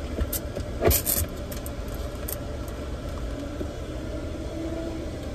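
Car engine idling, heard from inside the cabin as a steady low rumble, with a brief jingle of the keys on the ignition keyring about a second in and again a little over two seconds in.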